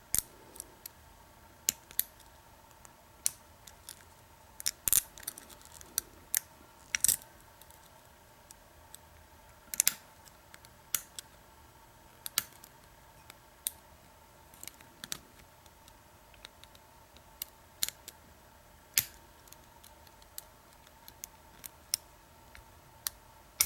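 Lock pick and tension wrench working the pins of an American 1100 padlock while single-pin picking: irregular sharp metallic clicks and small ticks as the pins are probed and set.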